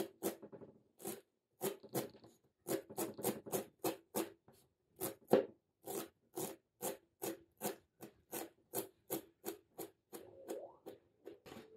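Kitchen knife chopping fresh dill on a cutting board: a steady run of quick chops, about three a second. Near the end the chopping gives way to a brief scrape of the blade across the board.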